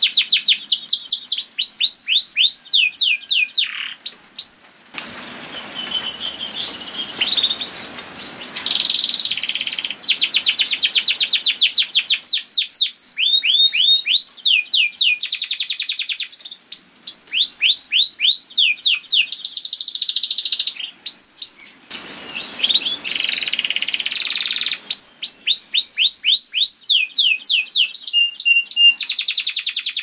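Domestic canary singing a long song of rapid trills, each a run of quickly repeated falling notes, switching from one trill to another every few seconds with a few brief pauses.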